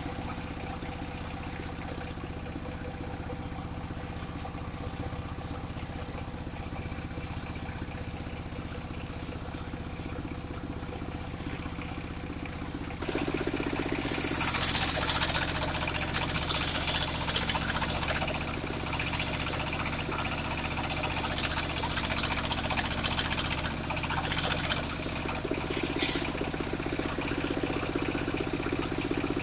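Engine of a mobile circular sawmill running steadily, then louder and busier from about halfway. A short, loud high hiss comes just after the change and another near the end.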